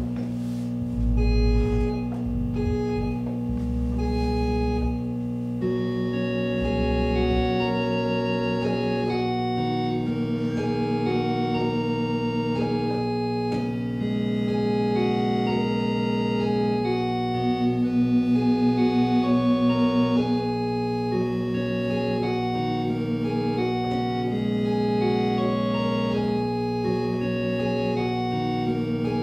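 Electric organ playing a slow piece of held chords. A few deep bass-pedal notes sound in the first seconds, fuller chords come in after about five seconds, and a fast warbling tremolo pulses on some held notes partway through.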